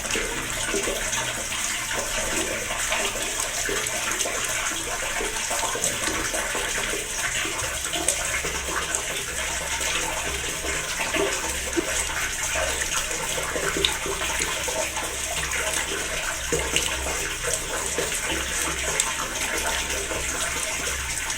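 Water trickling and splashing steadily, with many small drops plinking in an irregular patter.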